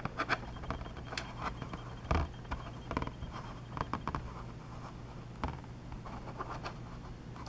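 Small plastic Riddell pocket football helmet being handled and turned on a tabletop: scattered light clicks, taps and scrapes of plastic and fingers against the surface, the loudest about two seconds in.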